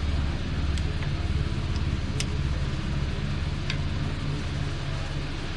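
A small engine running steadily at a low, even idle, with a few light metallic clicks over it.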